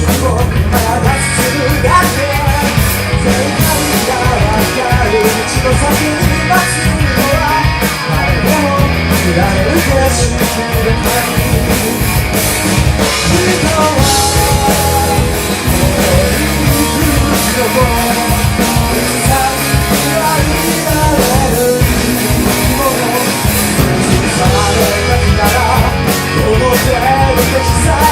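A rock band playing loud and steady, with a drum kit, electric guitar and singing.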